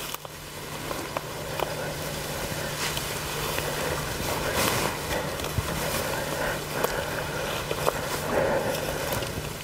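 Footsteps through forest undergrowth: boots on leaf litter and brush rustling against clothing, with scattered small snaps and crackles. A steady low hum runs underneath.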